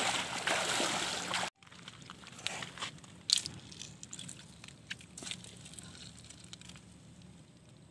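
Water splashing and sloshing around a person's legs as he wades through a shallow river, cut off abruptly about a second and a half in. Then quiet handling of a nylon fishing net on river stones, with a few short sharp clicks.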